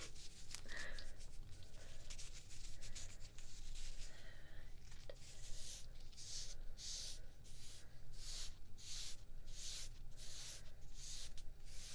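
Hands rubbing and scratching something close to the microphone: soft scratchy rustling at first, then from about halfway a regular run of brisk rubbing strokes, about two a second.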